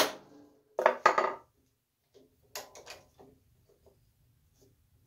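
Wooden knocks and taps as the wooden candlestick and the board it sits on are shifted on the drill press table to centre it under the chuck: two sharp knocks about a second in, then a few lighter taps near the middle.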